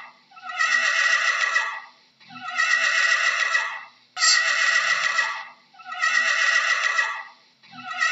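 Horse whinnying again and again: about five long neighs in a row, each about a second and a half, evenly spaced with short gaps.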